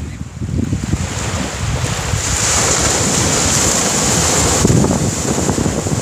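Small ocean waves breaking and washing up the beach, with wind buffeting the microphone as a gusty low rumble. The surf's hiss swells about two seconds in and eases near the end.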